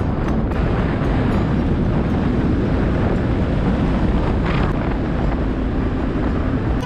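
Wind buffeting the microphone of a camera moving at speed along a paved road, a steady rushing noise heaviest in the low end. No engine note is heard.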